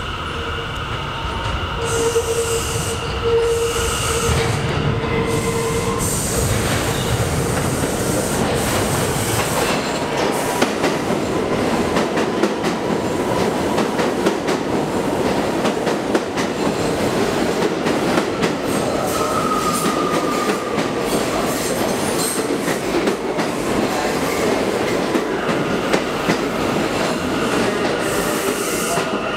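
New York City Subway train pulling into an underground station. Its wheels squeal with high steady tones in the first few seconds. Then a steady rumble with rapid clicking of wheels over rail joints as the cars run past.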